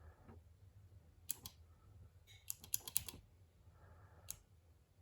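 Single push-button Morse keyboard clicking as the button is pressed and released, keying in letters: a pair of clicks about a second in, a quick run of clicks in the middle, and one more near the end. A faint steady low hum lies underneath.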